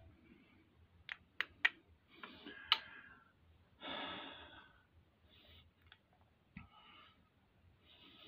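Quiet hand work on engine parts: a few light, sharp clicks of metal parts and tools in the first three seconds, then a breathy exhale about four seconds in and a couple of soft ticks.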